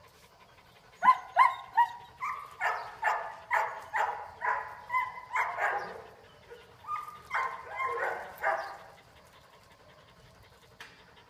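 A dog giving a quick run of short, high-pitched yips and whines, about two a second, beginning about a second in and stopping about nine seconds in.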